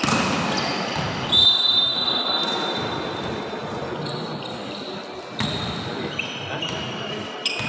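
Echoing sports-hall noise from the volleyball crowd, with a few sharp thuds of a ball on the gym floor. Several shrill high tones are held for about a second each, the loudest starting about a second in.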